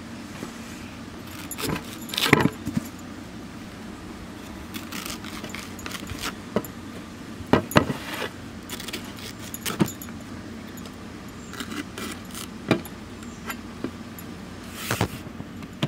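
Raw green plantains being broken off their bunch and set down on a steel plate: sharp clinks and knocks at irregular intervals, over a steady low hum.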